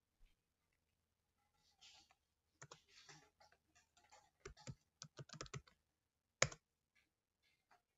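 Faint computer keyboard typing: a quick, uneven run of keystrokes, then one louder key press about six and a half seconds in.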